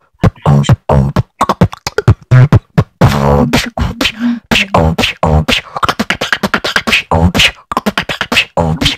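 Human beatboxing close on a microphone: a fast run of bass kick thumps and sharp snare and hi-hat clicks, with a few short sung tones between the hits.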